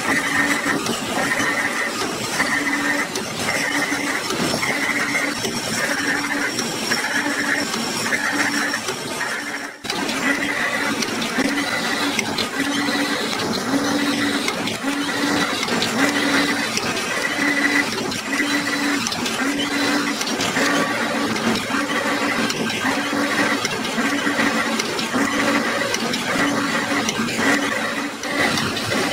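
Automatic wire mesh welding machine running, its resistance welding heads firing in a steady cycle of about one weld a second. Each weld is a short, pitched electrical hum over constant mechanical noise.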